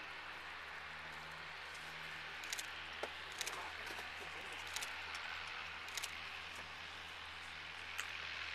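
Faint, steady drone of a distant light plane's piston engine running up for takeoff, with short high chirps every second or so.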